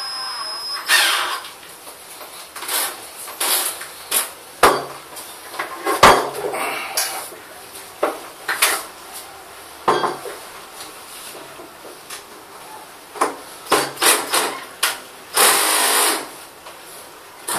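Irregular knocks, clicks and scrapes of a hard plastic car headlamp housing and hand tools being handled and set down on a wooden table.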